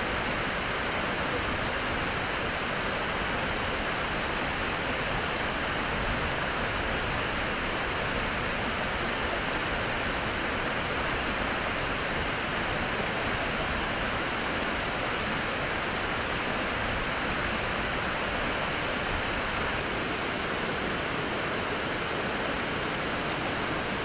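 Steady rushing of stream water, an even noise that does not change.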